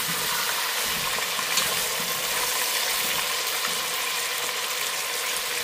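Pork ribs frying in hot oil in a stainless steel pressure cooker pot, a steady sizzle.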